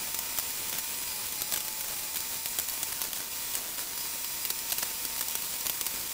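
Small rusty metal parts clicking and scraping against each other and the pan as they are turned over in a shallow bath of vinegar, a scatter of light clicks over a steady hiss.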